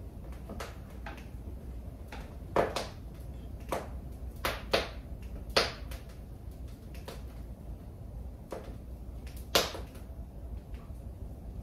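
Irregular wooden clicks and knocks as parts of a wooden spinning wheel are handled and adjusted during a repair, with about half a dozen sharper knocks standing out among lighter taps, over a low steady rumble.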